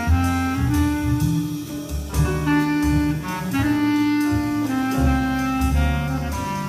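Jazz nonet playing live: saxophones and brass hold sustained chord notes that shift every second or so over a walking double bass line and drums.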